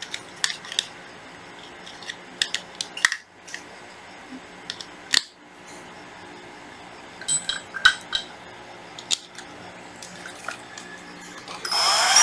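Scattered hard plastic clicks and knocks as a Hitachi 12V cordless drill and its battery shell are handled and fitted together. Just before the end the drill's motor starts and spins up with a rising whine.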